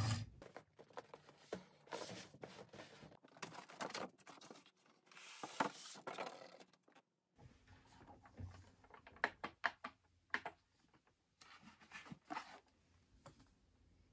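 Faint handling noises: scattered rustles, scrapes and light knocks as hands move and turn a table lamp with a wooden base on a tabletop.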